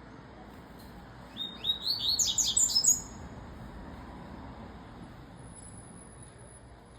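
Double-collared seedeater (coleiro) singing one short, rapid phrase of high notes. The phrase starts just over a second in and lasts under two seconds.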